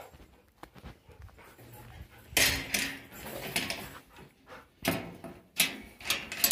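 An animal calling in several short loud bursts, the longest about two and a half seconds in.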